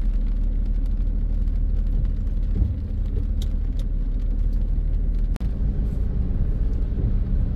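Steady low rumble of a Toyota Hilux pickup's engine and wet tyres, heard from inside the cabin while it rolls slowly on a rain-soaked road, with a few faint clicks and a brief break about five seconds in.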